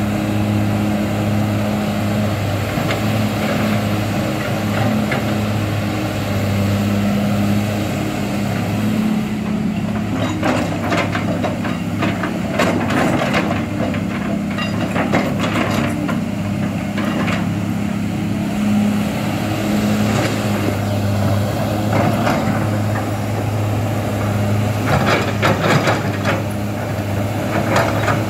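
Kobelco SK200 hydraulic excavator's diesel engine running steadily under load while it digs and lifts mud. Stretches of knocking and scraping come from the working bucket, around the middle and again near the end.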